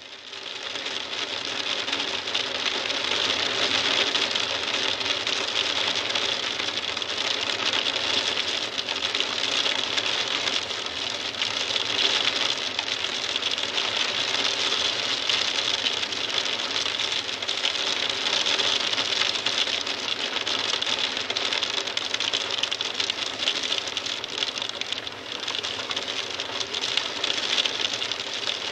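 A heavy shower pattering densely on a window and hard surfaces: a steady hiss full of rapid fine ticks that fades in at the start.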